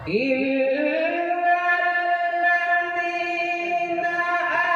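A man's voice in Quranic recitation (qirat), melodic and high-pitched, sliding up at the start into one long held note.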